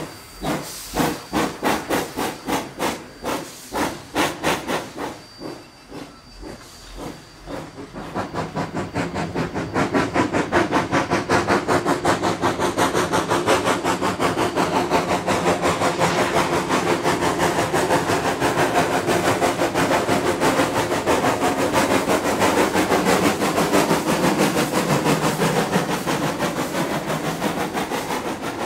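Narrow-gauge steam locomotive Rio Grande Southern #20, a 4-6-0 ten-wheeler, chuffing with its train at about two exhaust beats a second, with steam hissing. About eight seconds in the sound turns louder and denser, a steady run of rapid beats as the train works on.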